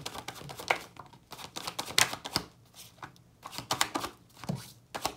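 Tarot deck being shuffled by hand: quick, irregular card clicks and slaps, pausing briefly a few times.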